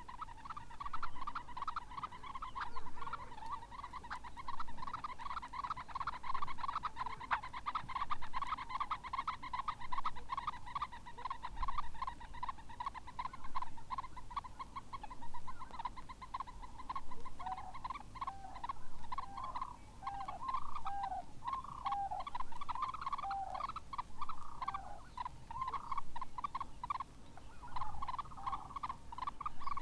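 Red-necked phalaropes calling: a dense run of short, rapid twittering notes that swell every couple of seconds, with lower down-slurred notes joining about halfway through.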